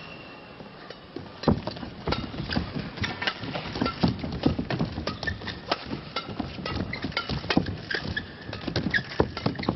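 Badminton doubles rally: rackets striking the shuttlecock back and forth amid quick footsteps and shoe squeaks on the court floor, starting about a second and a half in.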